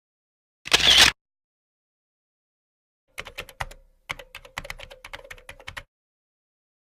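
Typing on a computer keyboard: a run of quick, irregular key clicks lasting about two and a half seconds, starting about three seconds in. Before it, near the start, comes a single short, loud burst of noise.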